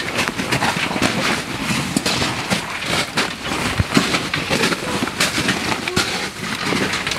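Hikers' boots crunching and scraping on glacier ice, a steady run of irregular crunches over a hiss of movement noise.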